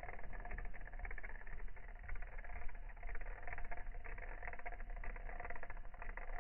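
Spring-wound clockwork motor of a Kikkerland Katita wind-up walking toy running, its gear train giving a steady, fast clicking whir.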